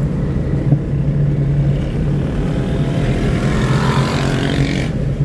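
Engine and road noise inside a moving Toyota car, a steady low drone. From about three seconds in a louder rushing noise builds up and stops abruptly near the end.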